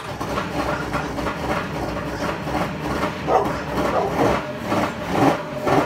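Yamaha GP1200 WaveRunner's two-stroke triple running unevenly on its first start after an engine rebuild, with choppy bursts over a steady low rumble.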